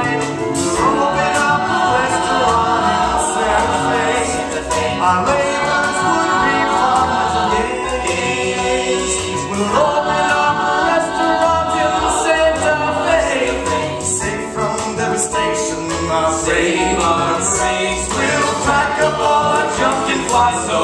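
Live musical-theatre song: singers performing with band accompaniment on a stage, heard from the audience.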